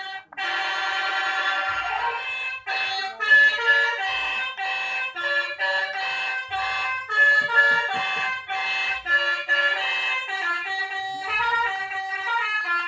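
Four-trumpet telolet bus horn playing a fast multi-tone melody, the notes changing several times a second, with a brief break just after it starts.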